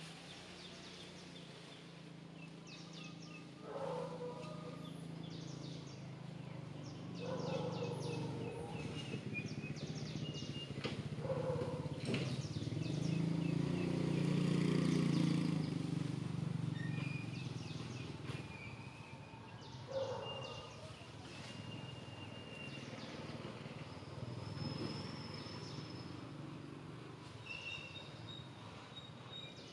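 Outdoor ambience of birds chirping, with many short high calls and whistles. A few lower short calls come through, and a low rumble swells and fades around the middle.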